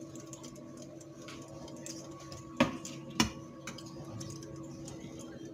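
A metal slotted skimmer knocking twice against a small frying pan, two sharp clacks about half a second apart near the middle, over a steady electrical hum with a few faint ticks.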